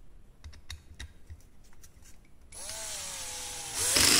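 Bosch GSR 120-LI 12 V cordless drill/driver in first gear driving a large Torx screw into wood: a few light handling clicks, then about two and a half seconds in the motor starts with a whine, and near the end a much louder rapid rattle sets in as the clutch, set to 1, slips.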